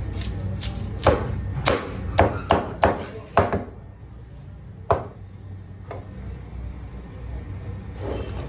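Large knife chopping through a big narrow-barred mackerel onto a cutting board: a quick run of sharp knocks in the first three and a half seconds, then a couple more, about a second apart.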